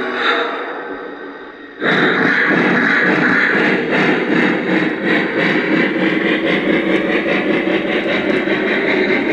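Lionel JLC Norfolk & Western Y6b model steam locomotive with a Legacy sound system: its sound fades away over the first couple of seconds, then a loud, rhythmic steam chuffing starts abruptly as the engine moves off again in reverse, along with the running of its wheels on the track.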